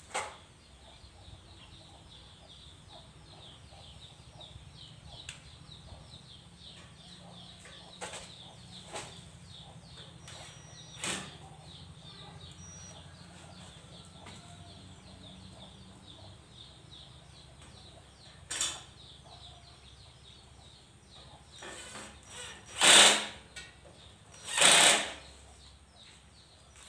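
Scattered clicks and knocks of hand work on a steel buggy frame, then two loud noisy bursts of about half a second each, two seconds apart, near the end. A faint low hum runs underneath.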